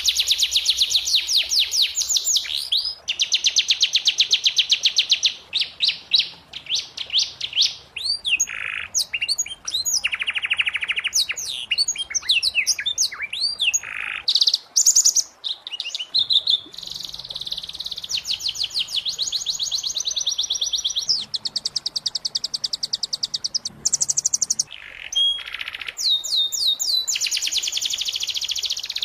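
Domestic canary singing continuously in long, fast trills of rapidly repeated notes, changing from one roll to the next with a few short sweeping whistles in between.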